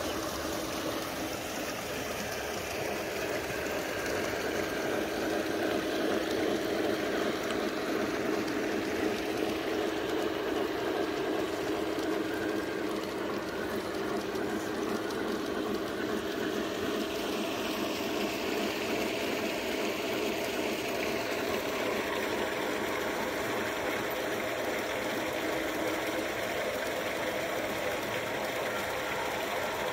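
G scale model steam locomotive running with its train over garden railway track, a steady mechanical running sound, mixed with the even splash of water from the garden pond.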